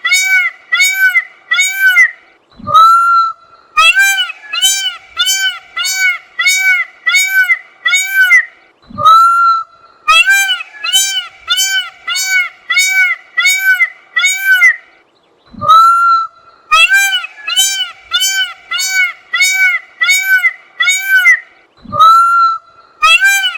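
Peacock calling: long runs of loud, honking calls, about two a second. Four times a run breaks off for a longer call that rises steeply in pitch before the honking resumes.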